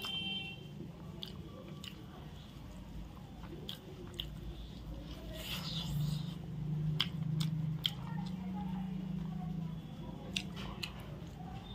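Close-up eating sounds of chicken biryani eaten by hand: chewing and biting with many short, sharp wet mouth clicks.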